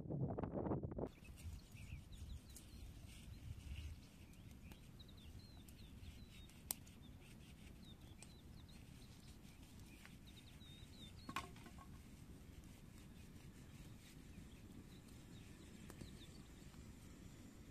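Quiet outdoor ambience: wind buffets the microphone for the first second, then faint small-bird chirps over a low wind hiss, with two sharp clicks about a third and two thirds of the way through.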